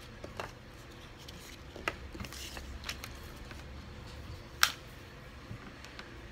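Small plastic building-block pieces clicking and tapping on a wooden table as they are handled: a handful of separate clicks, one sharper and louder about four and a half seconds in, with a brief rustle about two seconds in.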